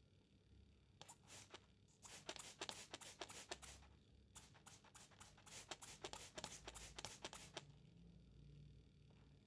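Faint, irregular clicks and light scratching from small hand work on a model car, in clusters with short pauses between them.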